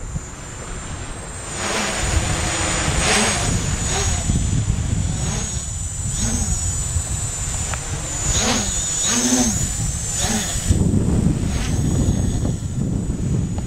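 Scarab MultiWii quadcopter's electric motors and propellers whirring in flight, a thin high whine with repeated swells as the throttle surges and eases.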